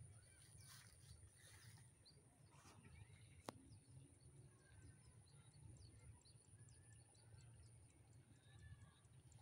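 Near silence: faint outdoor ambience with a low rumble, a faint steady high hiss, and one sharp click about three and a half seconds in.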